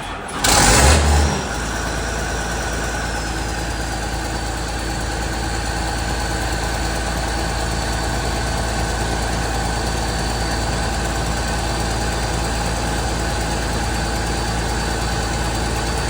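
Case IH 2388 combine's diesel engine starting: a short loud surge as it catches about half a second in, then it settles into a steady idle with a faint high whine. It fires right up.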